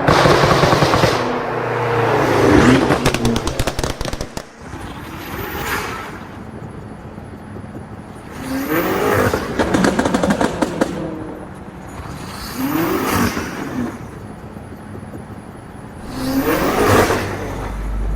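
BMW X6M Competition's twin-turbo V8 with an Akrapovic exhaust being blipped four times while stationary, each rev rising and falling back. Rapid pops and crackles on the overrun follow the first two revs.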